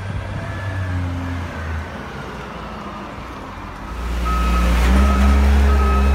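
Background music, then from about four seconds in the low, steady running of a CASE 721F wheel loader's diesel engine, growing louder, with its reversing alarm beeping at a steady pace.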